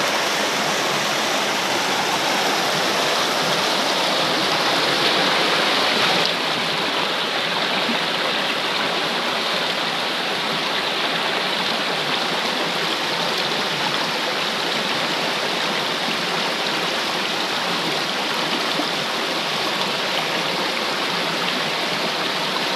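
Rushing of a shallow rocky stream, a steady wash of flowing water that eases slightly about six seconds in.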